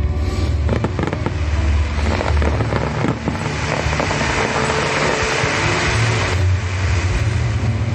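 A fireworks display: many sharp cracks and bursts over a continuous low rumble, with a dense crackling hiss swelling in the middle and cutting off about six seconds in.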